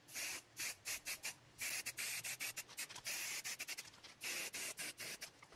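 Aerosol spray-paint can hissing in many short, faint bursts as paint is sprayed on.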